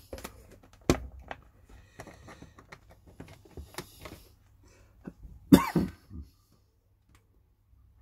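Light clicks and rustles of a small plastic camera and its USB cable being handled, then about five and a half seconds in a man gives a short cough in two or three bursts.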